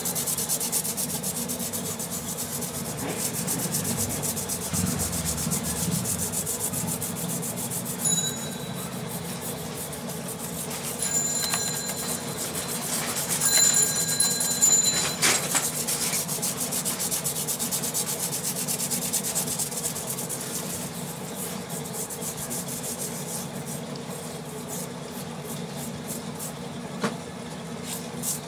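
Hand scrubbing the solder side of a television circuit board to clean it: a fast, scratchy rubbing that goes on steadily and is loudest about halfway through.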